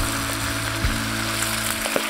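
Whole carp deep-frying in a pan of hot oil, sizzling steadily, under background music.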